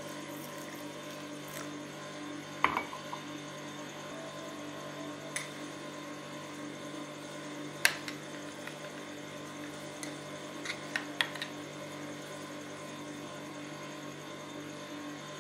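Metal spoon stirring soaked poppy seeds and almonds in a glass tumbler, giving a few scattered sharp clinks against the glass, two of them louder, over a steady low hum.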